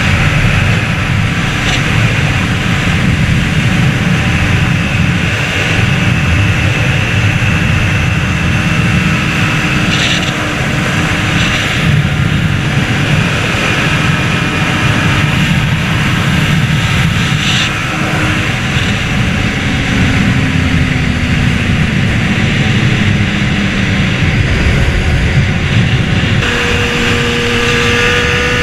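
Honda CBR600RR's inline-four engine running at riding speed under heavy wind noise. The revs ease down around twenty seconds in and climb again near the end.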